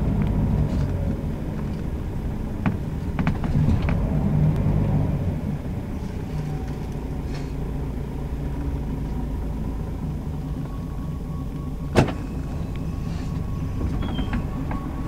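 Scania L94UB city bus running, heard from inside the passenger cabin: a steady low diesel engine and drivetrain hum, a little louder for the first few seconds and then settling. A sharp click about twelve seconds in.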